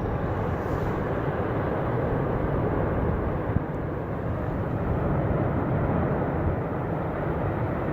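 Steady, deep rushing rumble of a mass pouring down over a mountainside, going on without a break or change.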